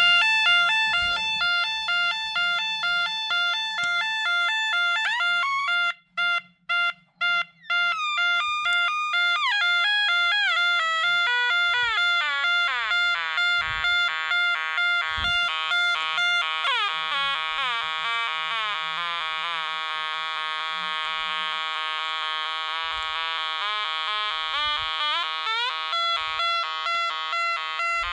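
Clifford & Snell YO3 Yodalarm electronic sounder sounding through its loudspeaker, its shrill tone changing pattern as a trimmer on its board is turned. The tone starts steady, breaks into short pulses about six seconds in, then turns to faster warbles and a rapid repeating sweep through much of the second half.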